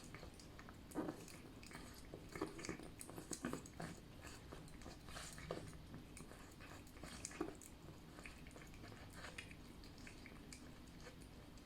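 A cat eating jelly food: faint, irregular chewing and smacking, busiest about one to four seconds in.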